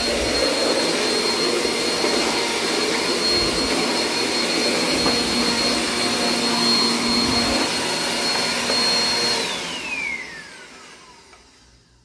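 Vacuum cleaner running with a steady high whine, in working order. About nine and a half seconds in it is switched off, and the whine falls in pitch and fades as the motor spins down.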